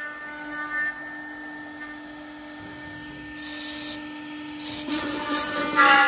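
Automatic door lock and hinge hole drilling machine running through its drilling cycle: a steady motor hum, with short bursts of hiss about three and a half seconds in and again near the end.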